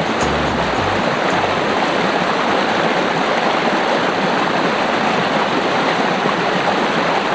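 Mountain creek water rushing steadily. Music plays over it for about the first second.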